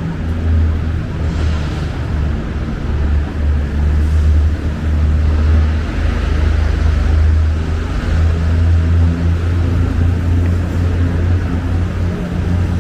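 Steady low rumble of busy city road traffic, with engine noise swelling as vehicles pass, near 1.5 s and again between about 6 and 8 s.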